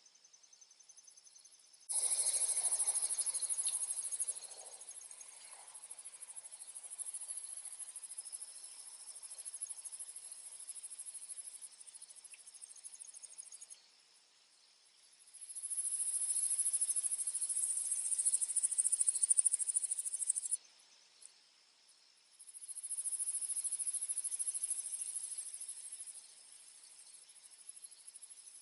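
Insects chirring in a high, continuous trill that comes in loud stretches, each starting and stopping abruptly, over a fainter steady high insect tone.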